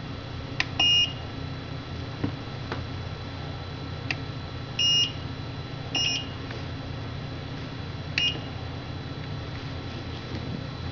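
Electronic control panel beeping as its buttons are pressed: about six short high beeps, one slightly longer a little before the middle, mixed with sharp button clicks. These are the confirmation beeps of the knee control settings being reset.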